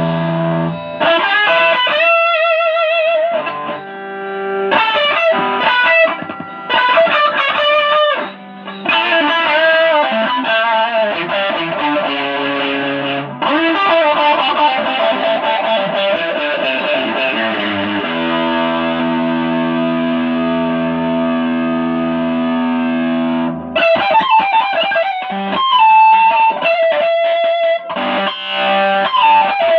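Pink Stratocaster electric guitar being played: single-note lead lines, some with wavering, vibrato-like pitch, and a chord held for about five seconds past the middle.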